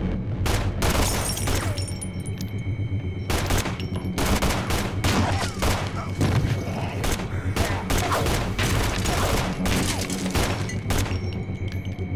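Long volleys of rapid automatic gunfire from a submachine gun. They begin about half a second in, pause briefly about two seconds in, then run on until about a second before the end.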